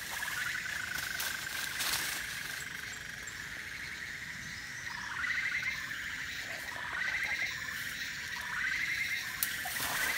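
Insects trilling in a steady high chorus, with short trill phrases repeating and swelling from about five seconds in. A few faint sharp clicks.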